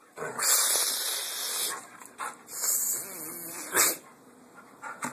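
A dog huffing and snuffling right at the microphone in breathy bursts. The first burst lasts about a second and a half, a shorter one follows, and there is a brief sharp puff near the end.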